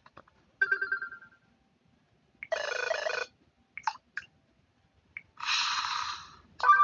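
A run of short electronic phone tones from a Samsung Galaxy Pocket, played one after another with short silences between them: a chime that fades out, two brief jingles, and several quick blips.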